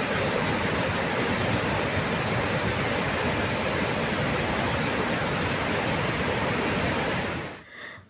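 Vazhachal waterfall on the Chalakudy River rushing over rocks in full spate, swollen by heavy rain: a steady, dense rush of white water. It fades out shortly before the end.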